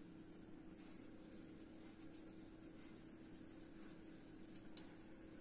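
Near silence: a faint scratchy rustle of fingers sprinkling black salt over food on a steel plate, under a low steady hum, with one small click near the end.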